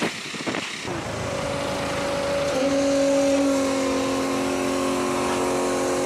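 A steady machine hum with several held tones, starting about a second in and settling at a constant pitch: fuel being pumped through a hose from a support truck's tank into a Land Rover Discovery Sport.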